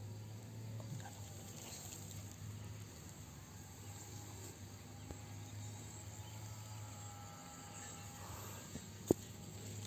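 Faint outdoor background with insects chirping over a steady low hum; one sharp click about nine seconds in.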